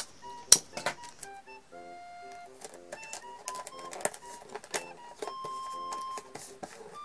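Light background music, over crackling, tapping and rubbing of brown paper tape being handled and pressed down onto a cardboard box, with a sharp snap about half a second in.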